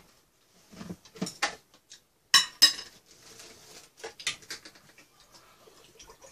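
Tableware clatter: two sharp clinks a little over two seconds in, then lighter clicks and rattles of utensils and dishes.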